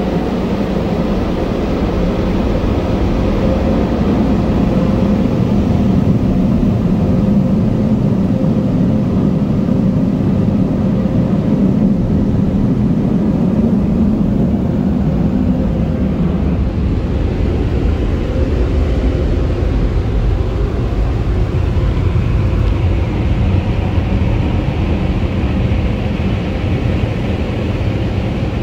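On-board Premier dryer blowers on an Istobal Flex-5 touchless car wash gantry, running steadily as the gantry passes over the car, heard from inside the car: a loud, even rush of air with a steady hum under it. The sound turns hissier in the last few seconds.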